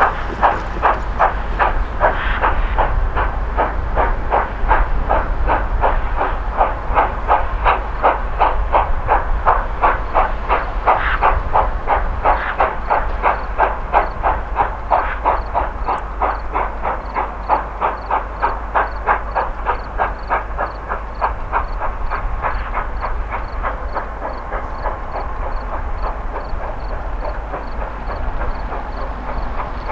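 Steam locomotive working along under steam, its exhaust chuffing evenly at about two to three beats a second over a steady low rumble. The chuffs grow fainter in the last third.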